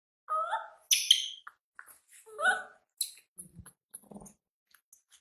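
Baby monkey crying: a few short, pitched wailing calls and shrill squeaks, the loudest about a second in, fading to faint rustling near the end.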